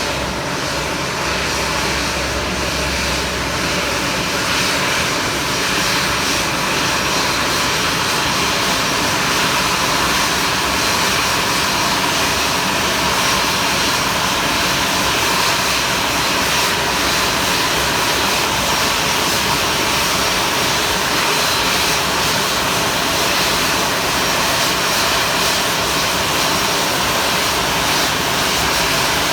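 Airplane engine noise, loud and steady: a wide, even rush, with a low rumble that fades after the first few seconds.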